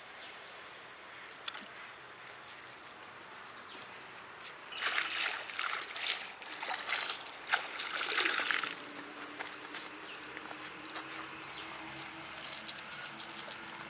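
Cast net being hauled up out of a pond. Water sloshes and streams off the mesh, loudest for a few seconds in the middle, then patters and drips more lightly.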